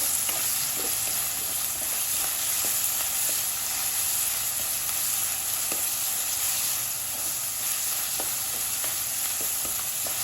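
Chopped onions, garlic and green chillies frying in hot oil in a kadai with a steady sizzle, being stirred, with light clicks now and then. The onions are being softened, not browned.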